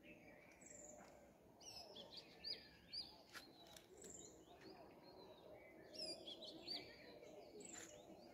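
Faint birdsong: several birds chirping in quick, high calls that come in clusters, over a faint background hum.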